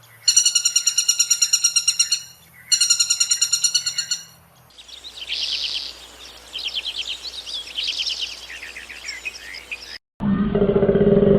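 Bird calls: two loud, rapid trills of about two seconds each, then several seconds of fainter chirping and twittering.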